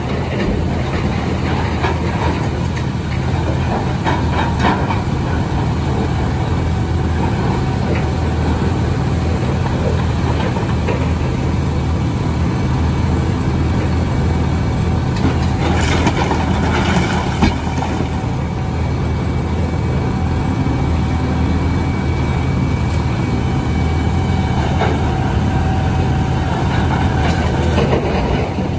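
Large Volvo crawler excavator's diesel engine running steadily under load as it digs and loads broken rock, with the clatter and scraping of rock against the steel bucket and the dump truck's bed, heaviest about sixteen to eighteen seconds in.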